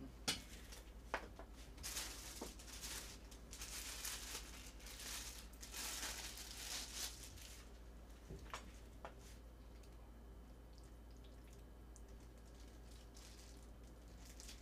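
A thin disposable plastic glove crinkling and rustling for several seconds as it is pulled onto a hand, with a few light clicks of chopsticks against plastic food containers near the start and again a little past the middle. A steady low electrical hum runs underneath.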